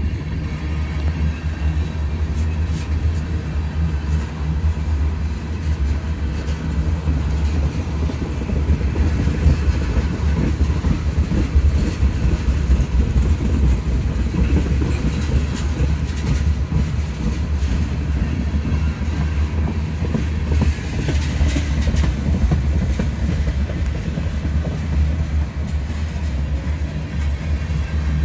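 Tank cars of a freight train rolling past: a steady, heavy low rumble of steel wheels on rail, with faint clicks running through it.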